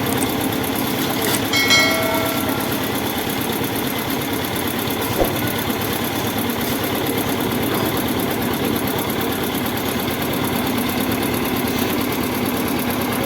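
Concrete mixer machine's engine running steadily. A brief high tone sounds about a second and a half in, and a single knock comes around five seconds in.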